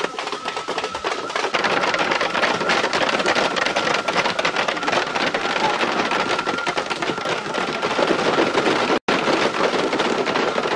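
Dense rustling and crackling of leafy plant stems and branches being thrashed, with a thin steady high tone behind. The sound drops out for an instant about nine seconds in.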